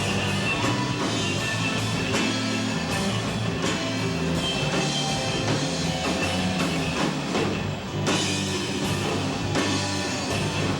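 Live rock band playing an instrumental stretch, drum kit hitting a steady beat under guitar and bass notes, recorded on a Panasonic PV-D209 VHS-C camcorder's microphone.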